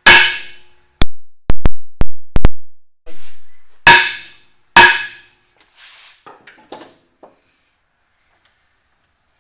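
Sledgehammer blows on the steel front brake drum of a 1978 Mack Cruiseliner, knocking the drum loose from the hub. A ringing metallic clang at the start, a quick run of sharp knocks between about one and two and a half seconds in, then two more ringing clangs about a second apart.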